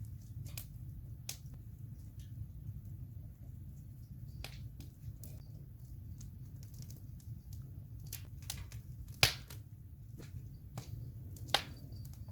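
Wood campfire crackling: irregular sharp pops and snaps over a low steady rumble, with two much louder pops near the end.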